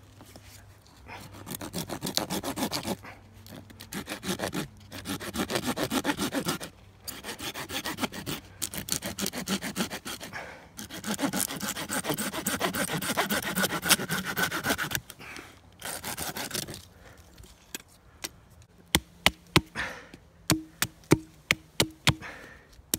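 Folding pruning saw cutting through a wooden stick on a stump, rasping back-and-forth strokes in several bursts with short pauses between. Near the end come a series of sharp chopping knocks as a blade shapes the point of the peg.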